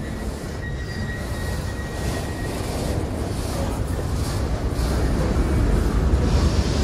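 Freight train boxcars rolling through a grade crossing: a steady rumble of steel wheels on rail that grows louder, with a faint thin high tone for the first two seconds or so.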